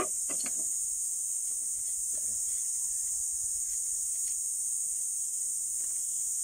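Steady high-pitched insect chorus, unchanging throughout.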